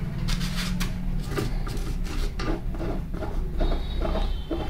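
Miter saw's screw hold-down clamp being turned down by hand onto a block of styrofoam: irregular rubbing and scraping with a thin squeak near the end, over a steady low hum.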